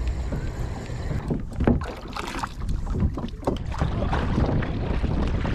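Double-bladed kayak paddle dipping and splashing in choppy water in irregular strokes, over a low wind rumble on the microphone.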